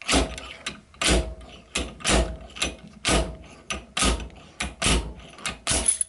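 Slide hammer being slammed again and again, roughly once a second: about six hard metallic blows, each followed by a lighter clack as the weight is drawn back. It is pulling on a screw driven into the cast-metal core of a Zeta padlock held in a vise, to force the core out. After the last blow near the end, the screw pulls free of the core.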